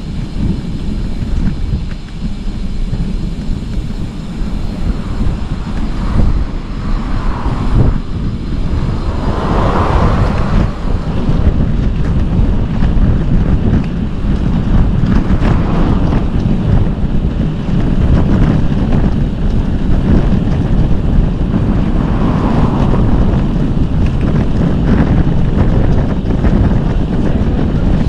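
Wind buffeting the microphone of a cyclist riding downhill: a steady low rumble that grows louder about eight to ten seconds in as speed builds.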